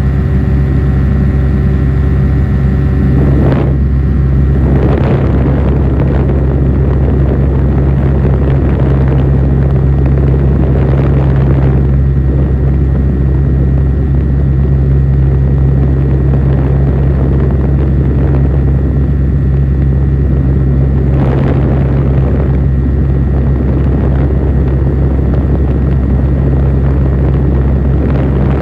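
Steady drone of a light propeller aircraft's engine in flight, with a higher whine that stops about three seconds in and several swells of rushing air noise.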